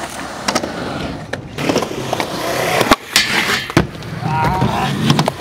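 Skateboard wheels rolling on concrete, with several sharp clacks of the board; the loudest clack comes about three seconds in. After it comes a bright scraping stretch of the trucks grinding along a steel flat rail.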